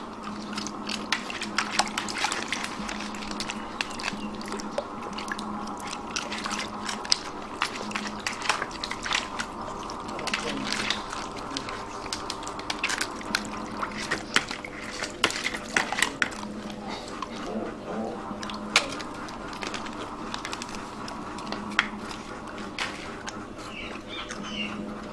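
Dogs eating: irregular wet chewing and crunching clicks over a steady background hum.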